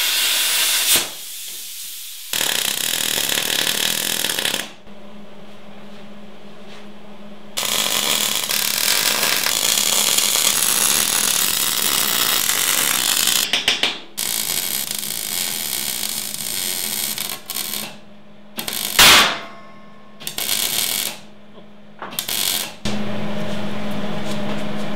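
Plasma cutter hissing as it cuts steel plate, then arc welding on the steel frame in a string of crackling, sizzling bursts a few seconds each, separated by short pauses. A steady low hum fills the gaps and runs on near the end.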